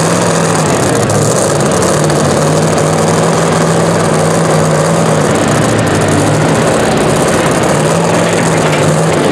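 Supercharged engine of a super modified two-wheel-drive pulling truck running steadily at idle, loud and unchanging, with no revving.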